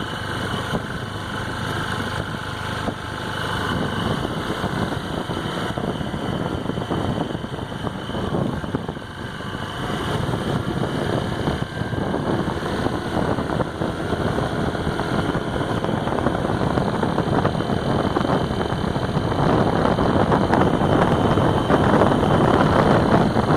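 2016 Honda PCX scooter's single-cylinder engine running, the steady sound gradually growing louder toward the end. This scooter makes a tinny rattle, like a tin can being banged, only under throttle; it stops the moment the throttle is released, and the owner does not know the cause.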